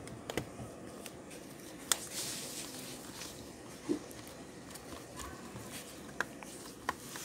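Hands pressing and sliding a thin metal keyboard backing plate into place on a laptop's plastic top case, giving scattered light clicks and taps over a faint rustle, with one sharper click about two seconds in and a dull knock about four seconds in.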